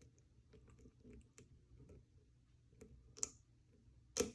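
A lock pick working the pin stack of a pin-tumbler lock under tension: faint metallic ticks and scraping, with two sharper clicks, one a little after three seconds and a louder one near the end, as a pin sets.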